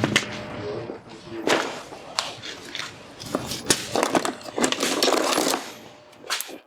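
Hand tools and metal parts knocking and clanking at an exposed car front brake, a run of sharp knocks with scraping and handling noise between them.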